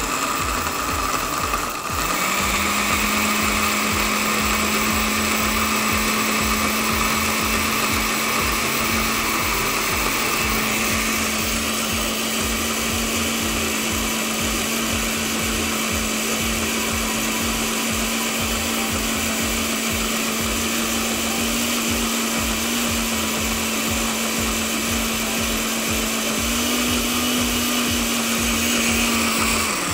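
Countertop blender running steadily, pureeing toasted peanuts and sofrito into a thick peanut sauce. Its motor dips briefly about two seconds in, then holds a steady hum.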